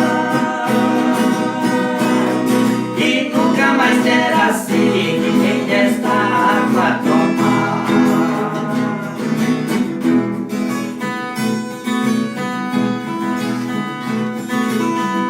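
Acoustic guitar strummed to accompany the singing of a gospel praise song; the voice drops out about ten seconds in, leaving the guitar playing on its own.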